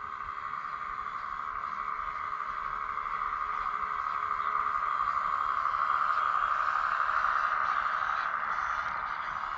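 Steady whine of a radio-controlled model machine's small electric motor drive, swelling in loudness towards the middle and easing off near the end.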